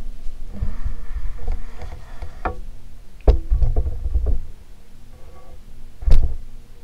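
Golden Fan model 168 industrial ceiling fan running with a steady motor hum, under irregular low rumbling gusts. Two sharp knocks land about three and six seconds in, the second one the loudest.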